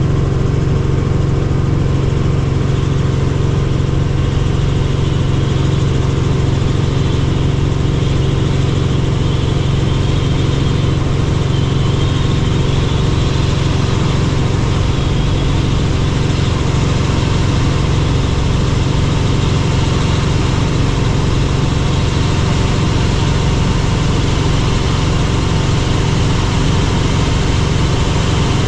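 Helicopter engine and rotor running steadily: a constant loud drone with a strong low hum.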